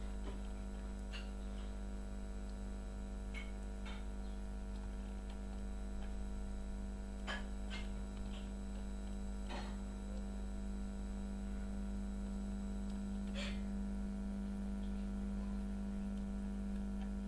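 Steady electrical hum, with a handful of faint short clicks scattered through it.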